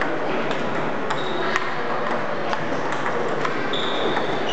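Table tennis balls clicking sharply off paddles and table tops, about twice a second, over a steady background noise.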